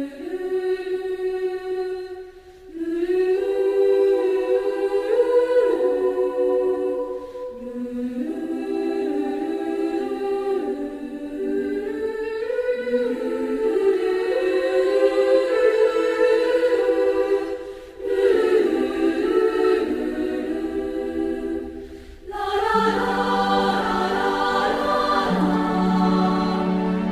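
Choral music: a choir singing slow, held chords in long phrases with brief pauses between them, and fuller low voices coming in near the end.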